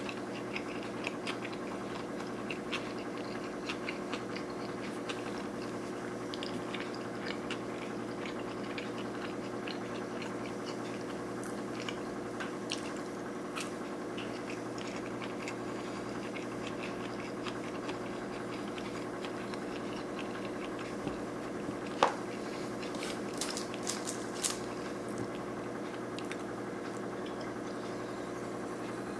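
Close-miked chewing of sushi rolls, with many small wet mouth clicks, over a steady low hum. A sharper click comes about 22 seconds in.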